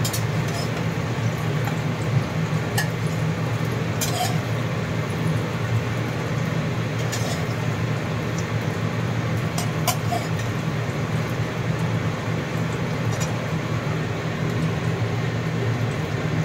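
Egg-and-carrot omelette sizzling in oil in a nonstick frying pan over a steady low rumble, with a metal spatula scraping and clinking against the pan about six times as the omelette is broken up and lifted out.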